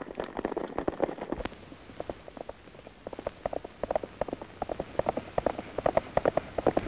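Galloping horses' hoofbeats: a thick clatter of many hooves at first, then after about a second and a half a single horse's quicker, more even beat that grows louder as it comes closer.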